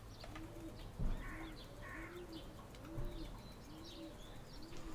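A pigeon cooing in a steady series of low, arched coos about once a second, with small birds chirping faintly and high above it. A soft thump about a second in.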